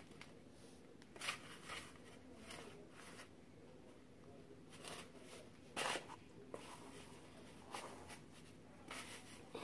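Kinetic sand being scooped and packed by hand into a plastic egg mold: faint scratchy rustles and short swishes, about a dozen spread through, the strongest a little before the middle.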